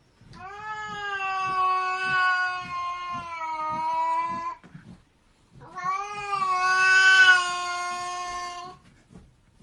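A cat yowling: two long, drawn-out calls, each holding a steady pitch, with a short break between them.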